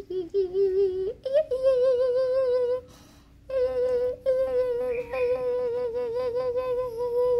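A small curly-coated dog howling in long, held notes with a wavering pitch. The pitch steps up about a second in, and there is a short break about three seconds in.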